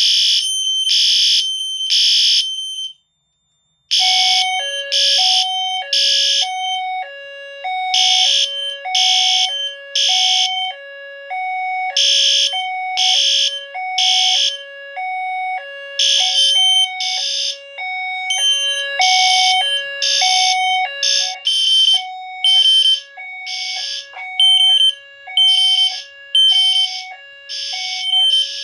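System Sensor fire alarm horns sounding the temporal-three evacuation pattern on the 3000 Hz tone, three short blasts then a pause, over and over: the system is in alarm from a tripped heat detector. The sound drops out briefly about three seconds in, and from about four seconds a low two-note hi-lo tone alternates steadily underneath.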